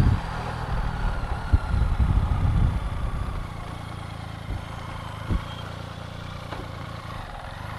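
Vehicle engine idling with a steady low hum, louder for the first three seconds and then settling, with a few brief knocks.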